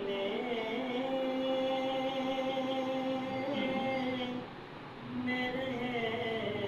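A man singing a naat, a devotional poem praising the Prophet Muhammad, unaccompanied, in long held notes. There is a short break about four and a half seconds in, then he sings on.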